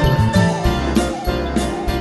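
Background music: pitched instruments over a bass line and a steady beat, with light tinkling percussion.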